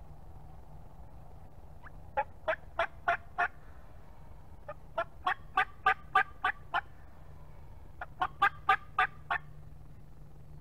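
Turkey yelping: three runs of short, sharp notes, about three a second, five to seven notes to a run, with pauses of about a second between runs.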